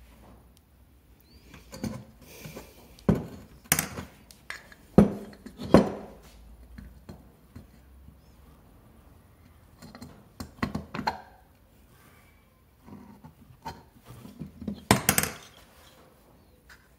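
Irregular metallic clinks and knocks of scooter engine parts and tools being handled and set down on a workbench, with the loudest clusters about five seconds in and near the end.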